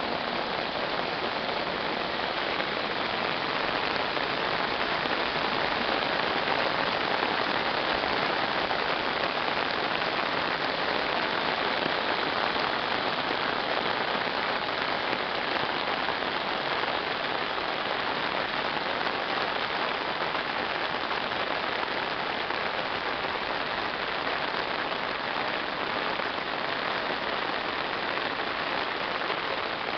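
Heavy rain pouring down, a steady dense hiss that neither builds nor fades.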